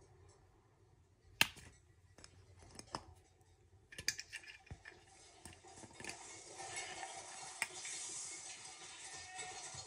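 A plastic drink bottle being nudged and pawed by a cat on a fleece blanket: a few sharp clicks and taps, the loudest about a second and a half in, then a steadier rustling and scraping from about four seconds in as the bottle is pushed along.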